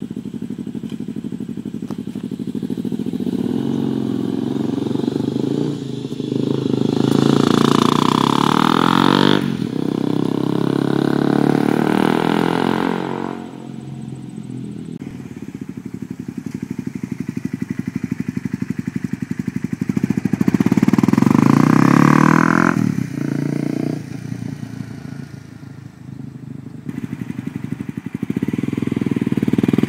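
2011 Honda CBR250R's single-cylinder engine through a Yoshimura slip-on exhaust, accelerating and revving as the motorcycle rides past. The engine note swells twice to its loudest, about eight seconds in and again about twenty-one seconds in, falling away between and dropping off sharply at throttle or gear changes.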